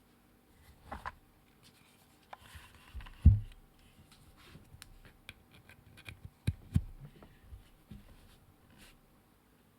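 Hands handling a keyboard on a desk: scattered light clicks and rubbing, with a few low thumps, the loudest about three seconds in.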